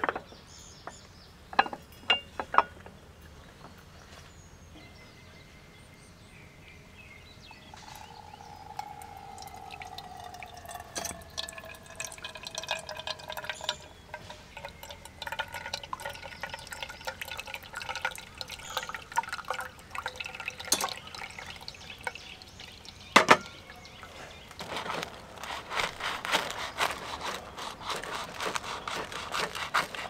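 Liquid pouring and dripping, with scattered small clicks and knocks, including one sharp knock about two-thirds of the way through.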